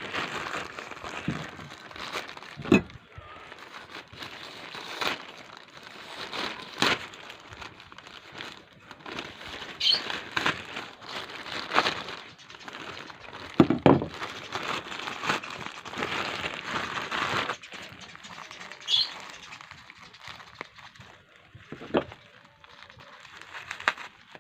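Plastic packaging crinkling and rustling as it is handled, with scattered sharp clicks and knocks.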